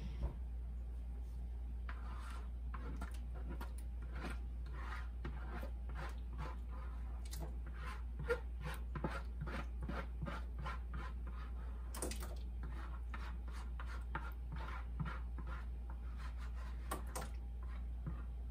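A spatula scraping tomato sauce out of a plastic mixing bowl in many short strokes, over a steady low hum.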